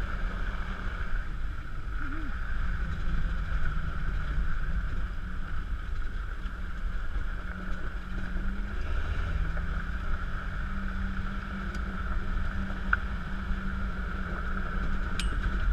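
Steady motor drone with low wind rumble on the microphone; no gunshot.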